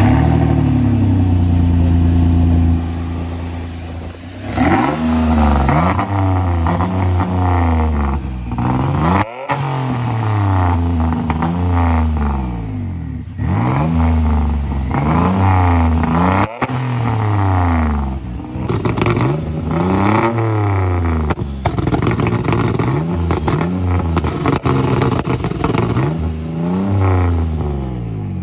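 Turbocharged, built Nissan VQ35DE 3.5-litre V6 in a 350Z, free-revving hard. It is held high for the first couple of seconds, then blipped up and let fall back about a dozen times in a steady rhythm.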